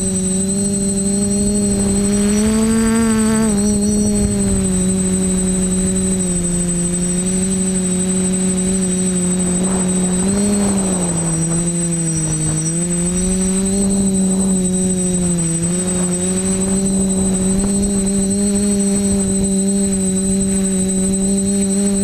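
TBS Discovery quadcopter's brushless motors and propellers running in flight, heard from the GoPro on its frame: a steady hum whose pitch wavers with throttle. The pitch rises about two to three seconds in and dips around twelve seconds. A faint high whine sits above the hum.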